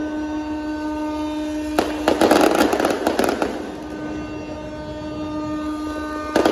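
Tugboat horns sounding long, steady blasts. Fireworks burst and crackle over them about two seconds in and again at the end.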